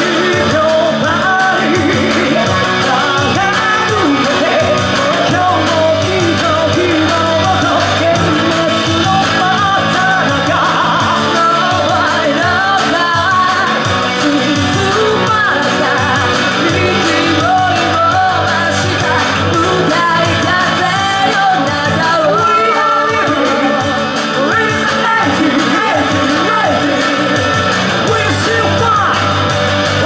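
Live rock band playing a song, with electric guitar and drums under a male lead singer who sings and shouts the lines, heard as loud steady music.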